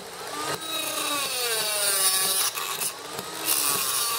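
Dremel rotary tool with a cutoff wheel cutting through a small brass pipe: a high gritty grinding over the motor's whine, which wavers in pitch as the wheel bites. It runs in two passes, with a short letup about two and a half seconds in.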